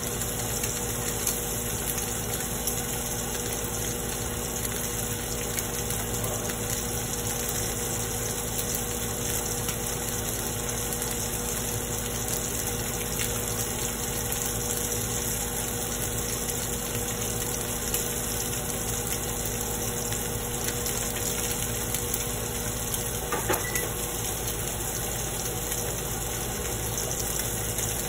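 Steak sizzling and crackling in a frying pan, steady throughout, over a constant mechanical hum.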